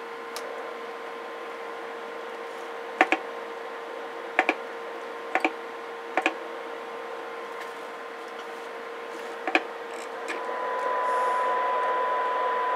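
Stryker SR-955 CB radio's receiver hissing through its speaker with a steady tone under the noise, during a receive sensitivity check from a signal generator. About ten seconds in, a steady 1 kHz test tone comes up out of the hiss and the sound gets louder. Five sharp double clicks come from the test set's controls being worked.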